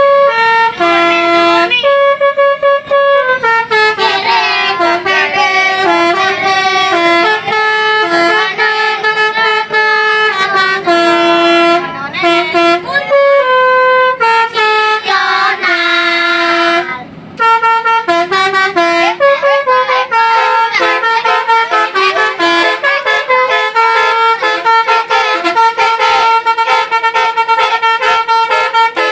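Indonesian bus 'telolet' musical horn, a set of multi-tone air horns, playing a tune of held notes that step up and down. It pauses briefly about seventeen seconds in.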